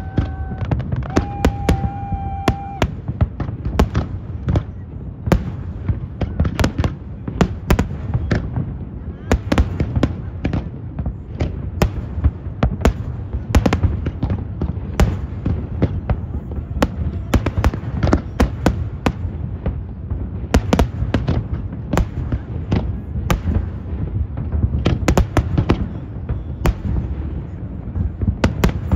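Aerial fireworks shells bursting continuously, many bangs and crackles a second over a deep rolling rumble. Near the start, a held tone sounds twice, briefly, over the bursts.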